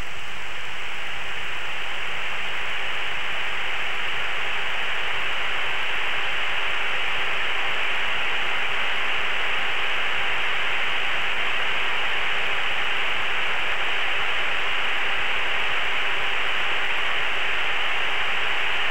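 Steady, even hiss on the cockpit radio and intercom audio with a faint steady hum, and no voices on the channel.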